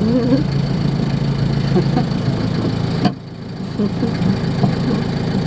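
Van engine running, heard from inside the cabin with the engine under the cab, on a test drive with a freshly fitted timing belt. A short rising squeak near the start, and the sound drops away sharply for a moment about three seconds in.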